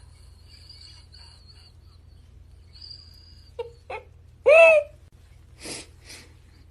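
A cat meows once, loudly, about halfway through: a single call that rises and falls in pitch. Before it come faint high-pitched squeaks and two small clicks, and near the end two short breathy puffs.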